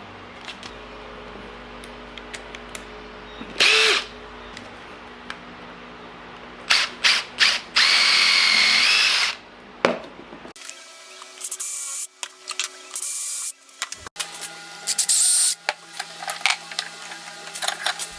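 Power drill boring a pilot hole through two clamped wooden clamp halves, in several separate bursts of drilling with a high whine.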